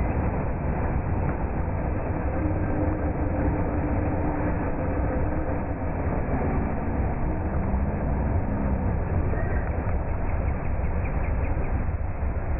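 Steady low rumbling noise of a vehicle in motion, with a faint tone that wavers in pitch around the middle.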